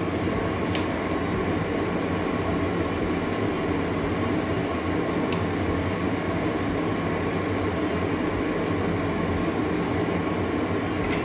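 Steady rushing noise with a low hum from the lit gas stove under a wok of heating oil, with a few faint crackles from the oil as it heats.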